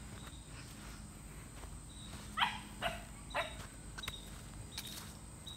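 A dog yelping three times in quick succession, short high cries that fall in pitch, about half a second apart, starting about two and a half seconds in.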